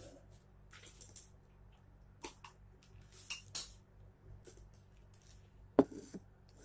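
Spoon and bowl being handled: scattered light clinks and clicks, with one sharper, louder knock near the end.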